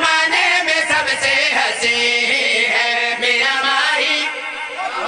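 Male voices chanting a devotional qasida refrain together into microphones, the lines held and drawn out; the singing eases off slightly near the end.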